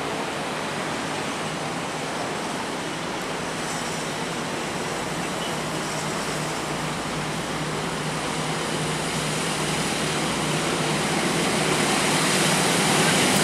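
Diesel locomotive hauling a container freight train as it approaches: a steady rush of engine and rolling noise that grows louder over the last few seconds.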